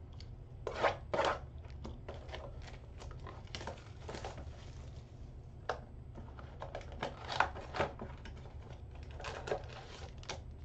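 A cardboard Panini Select Football Mega Box being handled and opened by hand: a run of irregular taps, scrapes and crinkles from the box flaps and the foil card packs inside, over a steady low hum.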